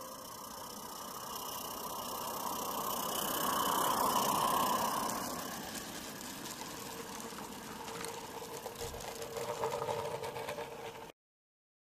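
Small 32 mm gauge live-steam locomotive hauling skip wagons runs close past. Its steam and running sound rises to a peak about four seconds in, then fades. After that the wagon wheels click and rattle over the track until the sound cuts off suddenly near the end.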